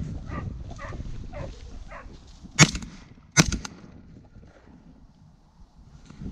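Two shots from a semi-automatic 12-gauge shotgun, less than a second apart, at a running hare. Before them, a hound bays in short repeated calls while on the hare's trail.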